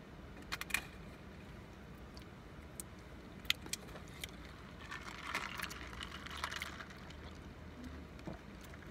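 Quiet handling noises while eating inside a car: a few light clicks, then a stretch of rustling about five seconds in, over a low steady hum.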